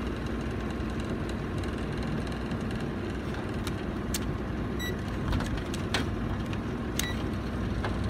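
HVAC unit running steadily with a low mechanical hum. A few sharp plastic clicks and knocks come from about halfway through as clamp meters are handled and clamped around a wire.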